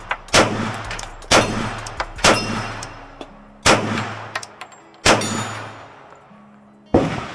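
Glock 23 pistol in .40 S&W being fired, six single shots at an uneven pace about a second to a second and a half apart, each followed by a short fading echo.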